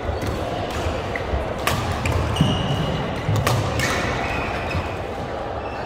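Badminton rackets striking a shuttlecock: a few sharp clicks a second or two apart during a doubles rally, with brief high squeaks of court shoes on the floor.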